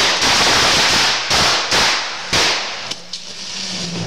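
Fireworks going off at close range: a loud crackling spray of noise in three or four sharp-starting surges over the first two and a half seconds, then dying away.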